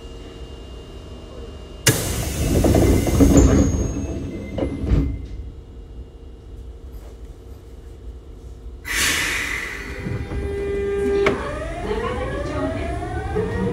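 Osaka Metro 22 series subway car at a station: about two seconds in the doors slide shut with a sudden air hiss and close with a knock. A second air hiss follows near nine seconds, then a click, and from about eleven seconds the inverter and traction motors start up in several rising whines as the train pulls away.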